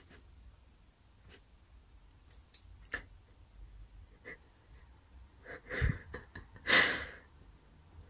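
A few faint clicks and taps, then two short breathy sounds about a second apart, the second one the loudest.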